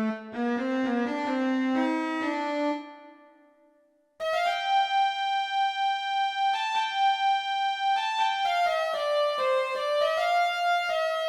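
Keyboard instrument playing short Turkish folk-style melodic phrases: a quick run of notes that fades away, then, after a brief gap about four seconds in, a longer phrase of held notes stepping up and down in pitch.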